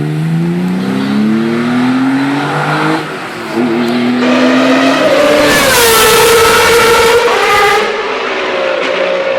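Historic rally car accelerating hard up through the gears, with a brief dip at a gear change about three seconds in, then passing close by at full throttle, its engine note dropping as it goes past.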